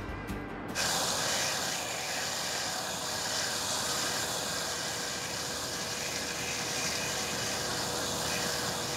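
Gas burner flames hissing steadily as a neon glass tube is heated in them for bending. The hiss starts under a second in and holds even, with a faint steady hum beneath it.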